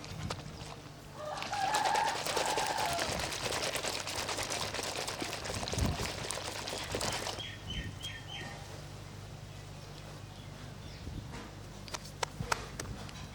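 Water rushing and splashing for about six seconds, then cutting off sharply, followed by four quick bird chirps. A low steady hum runs underneath, and there are a few clicks near the end.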